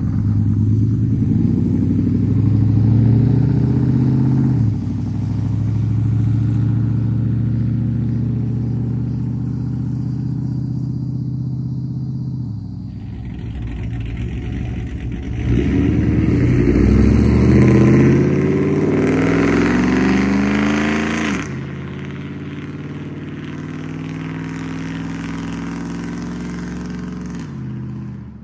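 Cammed 5.3-litre V8 of a 2006 GMC Sierra pickup with long-tube headers, pulling away and accelerating. It runs first through Cherry Bomb glasspack mufflers, then, about 13 seconds in, with straight pipes. In the straight-pipe part the engine note rises for several seconds, drops sharply at a shift, holds steady, and fades near the end.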